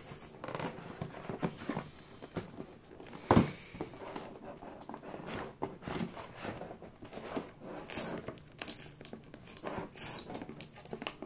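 Fingernails picking and scratching at a cardboard box, working a clear tape seal loose, with scattered rustles and small clicks and one sharper knock about three seconds in.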